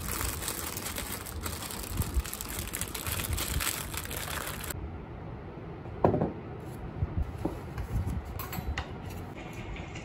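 Rustling and crinkling of plastic-wrapped groceries being handled inside a canvas tote bag, stopping abruptly. Then a single knock about six seconds in as a ceramic bowl is set down on a table, followed by a few light taps.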